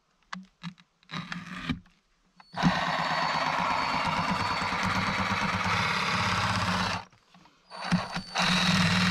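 Ryobi oscillating multi-tool cutting through a pumpkin's rind with a steady buzz. It runs for about four seconds, stops, and starts again near the end.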